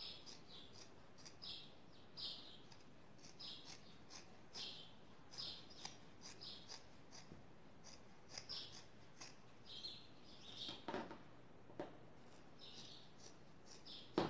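Fabric scissors cutting through several layers of folded knit fabric, a short faint crunch about once a second, as a folded edge is trimmed even.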